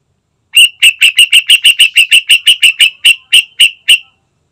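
Yellow-vented bulbul singing a rapid run of about seventeen short, clipped, loud notes, about five a second, spacing out slightly towards the end.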